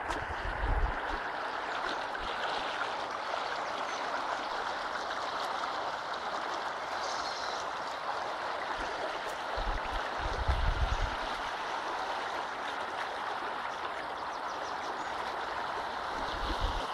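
Fast-flowing river water rushing steadily below a footbridge, an even, unbroken rush. A few brief low buffets on the microphone come about a second in, around ten seconds in and near the end.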